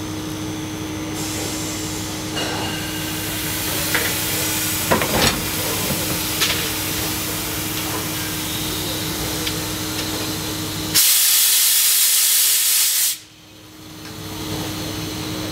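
Class 52 steam locomotive standing under steam, with a steady hum and hiss and a few short knocks in the middle. About eleven seconds in, a loud rush of released steam starts suddenly, lasts about two seconds and cuts off sharply.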